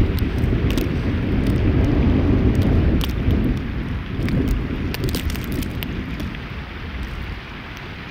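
Wind buffeting the microphone in gusts, a low rumble that is strongest for the first three seconds and eases off later, with scattered light clicks over it.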